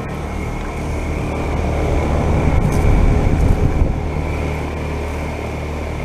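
Carrier Comfort Series heat pump outdoor units running, a steady compressor hum with a faint high whine over it, one unit having just switched into its defrost cycle. A louder low rumble swells for a couple of seconds in the middle.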